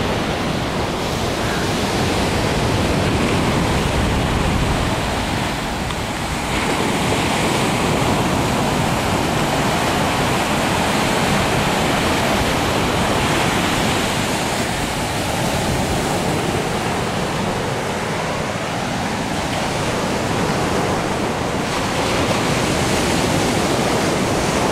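Sea surf washing onto a sandy beach: a steady, loud rush of noise that swells and eases, with wind rumbling on the microphone.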